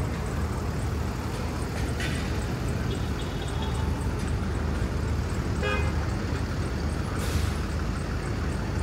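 City street traffic with a steady low rumble of passing cars. A car horn gives a short toot about six seconds in, and a brief hiss follows a little after seven seconds.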